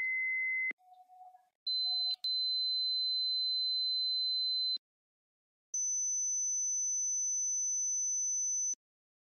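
Steady pure sine-wave alarm tones, the preset high-pitched 'mosquito tones' of a computer-generated alarm clock, played one after another. Each is held about three seconds with short gaps between, and each is higher-pitched than the last.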